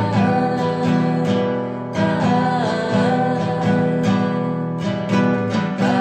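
Background music: strummed acoustic guitar under a melody that bends up and down in pitch.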